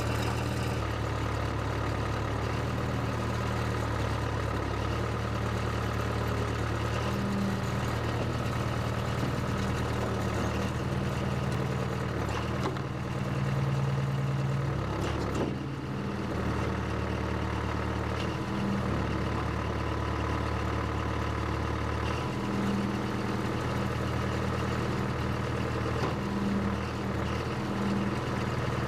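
Case 580CK backhoe engine running steadily, with a brief change in its note about halfway through.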